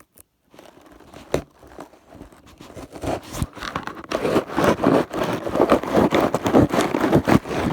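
Cardboard shipping box being cut open: a single click, then a run of rapid rasping, scraping strokes as the blade works through the box.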